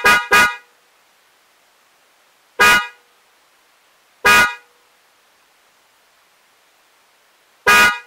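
DENSO J-Horn Hyper car horn sounded in short toots: two quick beeps at the start, then single short toots a couple of seconds apart, the last near the end.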